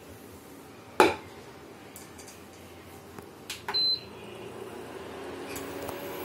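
A metal kadai knocks down onto a glass induction cooktop, then a few clicks and one short high beep as a touch button on the cooktop is pressed. From about four seconds in, the cooktop's fan starts up with a steady hum as it switches on.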